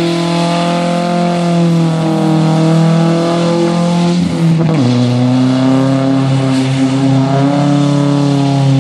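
Pickup truck engine held at high revs as it spins its rear tires in donuts on wet pavement, with a hiss of tire spin and spray. About halfway through, the revs drop quickly to a lower, steady pitch.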